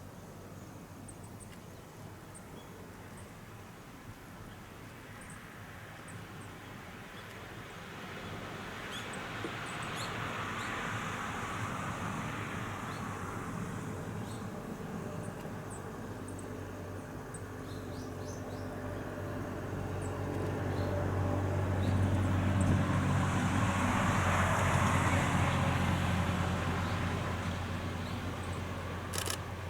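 Road vehicles passing one after another: a first pass swells and fades, then a louder one with a low steady engine hum. Faint short bird chirps come through the background, with a few sharp clicks near the end.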